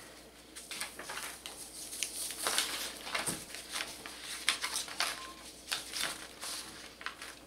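Sheets of paper rustling and sliding under a hand, with irregular soft scrapes and taps.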